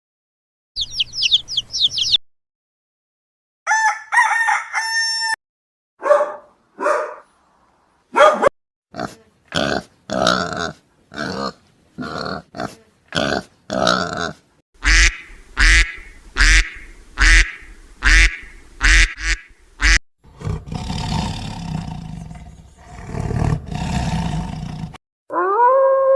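Animal calls one clip after another: chicken calls first, then a long run of short calls in quick succession, a rough growling stretch, and near the end a howl that rises and then holds steady.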